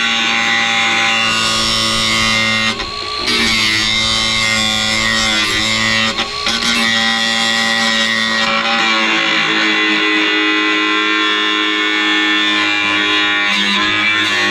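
Background music with guitar, steady chords changing every few seconds.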